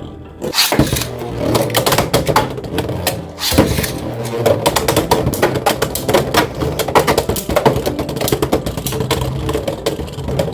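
Beyblade spinning tops whirring and clattering in a plastic stadium, a fast run of clicking knocks as they hit each other and the walls, with background music underneath.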